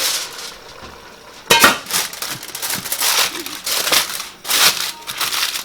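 Kitchen foil crinkling and crackling as it is handled over a pot, starting about one and a half seconds in. The foil seals the pot for dum steaming of the rice.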